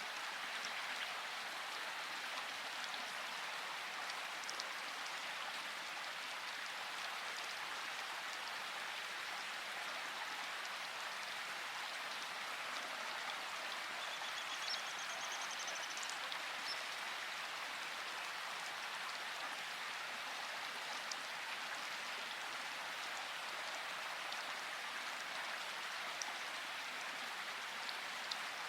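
Steady, even hiss of water, with one short, faint high bird call about halfway through.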